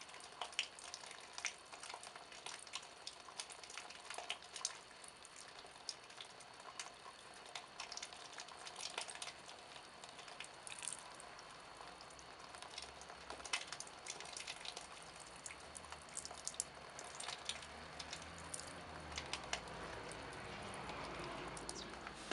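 Liquid dripping into a plaster-bandage goblet: many small, irregular drips and crackles over a steady hiss, which swells with a low rumble near the end.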